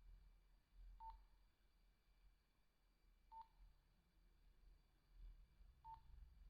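Three short, faint key beeps from a Nokia 2110i's keypad, each a single tone, about two and a half seconds apart as keys are pressed to browse the menu. A low hum lies underneath.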